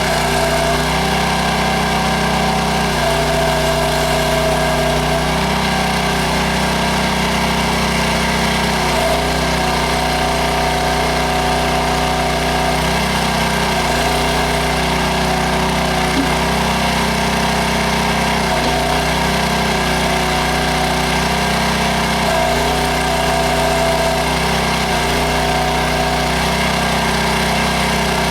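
Towable backhoe's engine running steadily while digging, its note shifting briefly every few seconds as the hydraulics take load.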